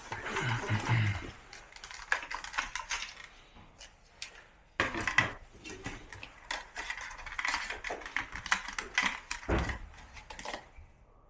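A run of irregular, clustered clicks and clatter: hard plastic parts and tools being handled and fitted during air-conditioner servicing.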